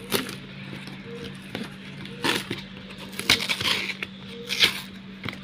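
Plastic packing tape being peeled off and a cardboard box being ripped open by hand: a series of short tearing, crackling rips, the loudest about two, three and four and a half seconds in. A steady low hum runs underneath.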